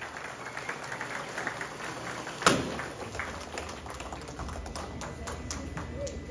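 Scattered hand claps from the guests dying away, with one loud thump about two and a half seconds in and a few more sparse taps after it.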